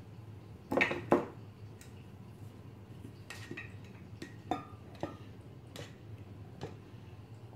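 Glass flour jar and kitchenware being handled as flour is scooped out: a couple of sharp knocks about a second in, then scattered light clinks of glass, some with a short ring.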